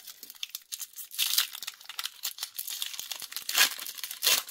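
Lorcana booster-pack foil wrappers crinkling as packs are handled and torn open, with a run of short rustles and louder bursts about a second in and around three and a half seconds.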